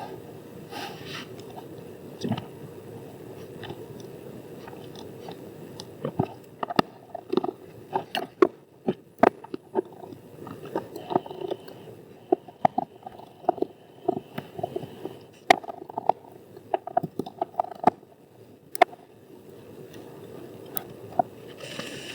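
Irregular sharp plastic clicks, snaps and scraping, starting about six seconds in, as a portable hard drive's plastic enclosure is worked open with tools.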